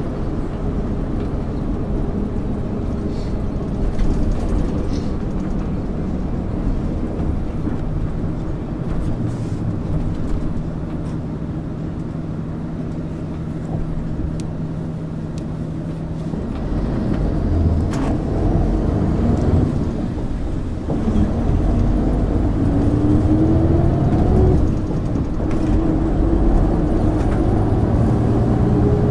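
1999 MAN ÜL 353 intercity bus on the move, engine and road noise running steadily. In the second half the engine grows louder and its note climbs in pitch twice, with a short drop between, as the bus accelerates.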